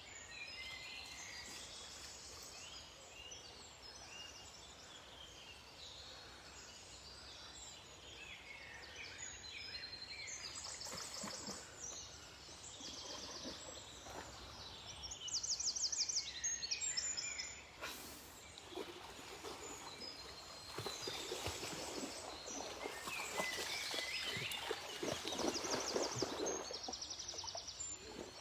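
Several small birds singing, with short chirps and quick trills throughout. About two-thirds of the way in, a noisy rustling and crunching joins them, as loud as the birdsong.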